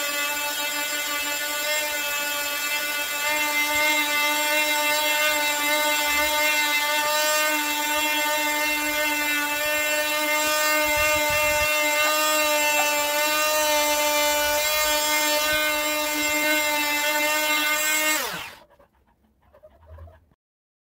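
Wesco oscillating multi-tool running at a steady pitch as its blade carves wood. About 18 seconds in it is switched off and its pitch falls quickly as it winds down to a stop.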